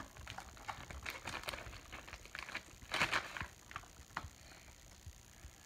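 Small screwdriver and fingers working on a white plastic speedcubing timer to open its battery cover: scattered light clicks and plastic taps, with a denser bit of rattling handling about three seconds in.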